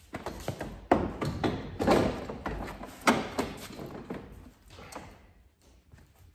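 BMW M3 E93 front bumper reinforcement beam knocking and clanking against the car's front crash structure as it is fitted by hand. The sharpest knocks come about one, two and three seconds in, then fewer and fainter ones follow.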